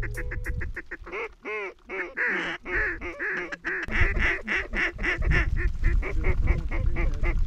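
Mallard quacking: a few drawn-out quacks, then from about four seconds in a fast run of short quacks, about four or five a second.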